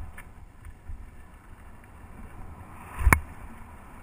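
Mountain bike descending a dirt singletrack: wind rushing over the camera's microphone and the tyres rolling over the dirt, with one sharp clack about three seconds in.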